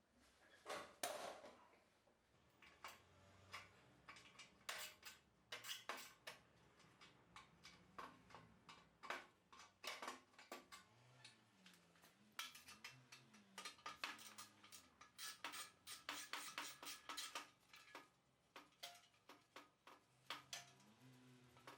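Light metallic clicks and clinks, coming in scattered clusters, as metal parts and hand tools are handled and set down.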